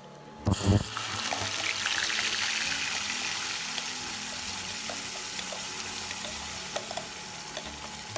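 Wet ground masala paste of onion, tomato and herbs dropped into hot oil in a steel kadhai. It lands with a thump about half a second in, then sizzles loudly, with a few spatters, and the sizzle slowly dies down.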